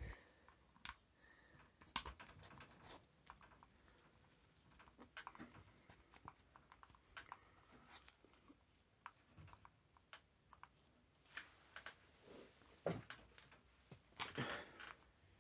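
Faint, irregular small clicks and taps of a screw and a plastic strimmer throttle handle being handled with rubber-gloved fingers, with a denser run of clicks near the end.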